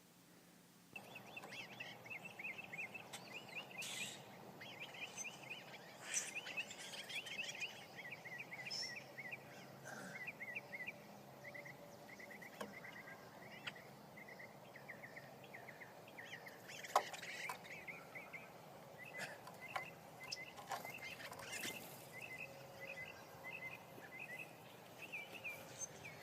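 Faint songbirds calling: repeated rapid trills of short, high chirps, starting about a second in, with a few scattered clicks.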